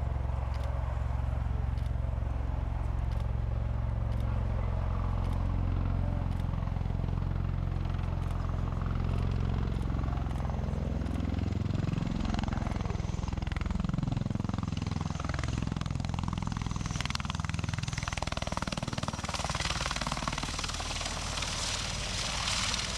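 Bell Boeing MV-22B Osprey tiltrotor's proprotors and engines running: a deep, steady rotor drone with faint regular ticking. From about halfway through, its pitch wavers and slides up and down as the aircraft moves, and a rising hiss builds near the end.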